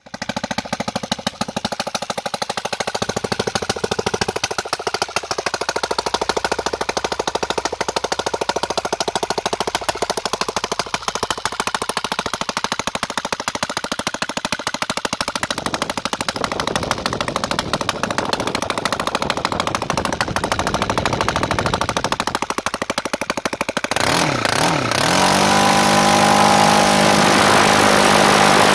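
Torqpro 70 model engine running on a test bench with an open exhaust and no silencer, very loud, with a rapid firing clatter. It has just been overhauled after a failure. About 24 s in, it speeds up and settles into a louder, steadier high-pitched run.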